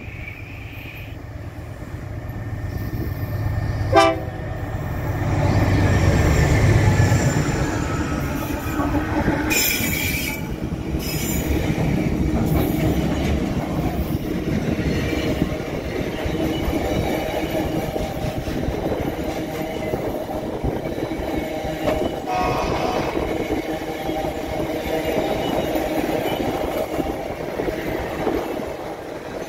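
Diesel freight train passing close by. A short horn blast sounds about four seconds in, and the locomotive's engine rumble swells as it goes past. A long string of freight wagons and flatcars then rolls by with steady wheel-on-rail rumble and clatter.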